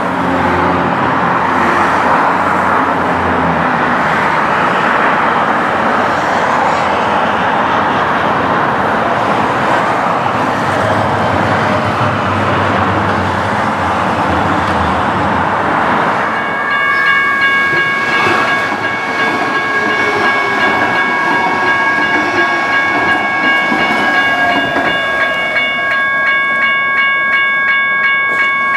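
Calgary C-Train Siemens S200 light rail train running along the track with a steady rumble and wheel noise, road traffic alongside. About halfway through, a bell-like warning signal starts and rings on with rapid, even repeats.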